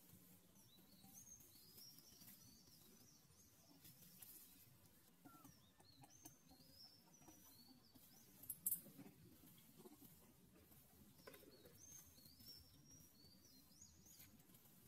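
Faint birds chirping in short runs of quick, high, falling notes, over a quiet outdoor background. A single sharp crackle about halfway through is the loudest sound.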